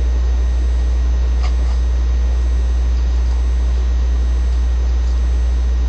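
Steady low hum under a constant hiss, with a faint high whine and no speech; a faint tick about one and a half seconds in.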